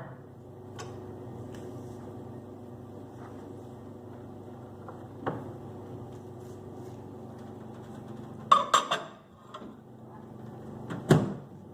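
A dish of upma being handled and loaded into a microwave oven: a few light clinks over a steady low hum, a cluster of clattering knocks about eight and a half seconds in, and a single heavy thud near the end.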